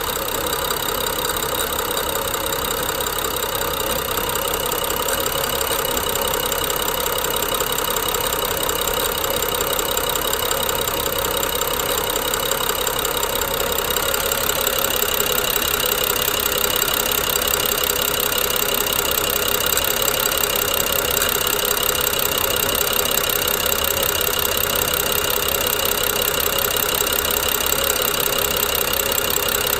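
BMW N55 turbocharged inline-six idling roughly, with a fast, steady clicking and grinding that goes with the jerky idle. The owner takes the noise for the Valvetronic motor gear and eccentric shaft; it persists despite new coils, plugs and VANOS solenoids.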